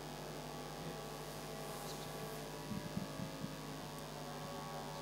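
Steady electrical mains hum, with a few faint low knocks about three seconds in.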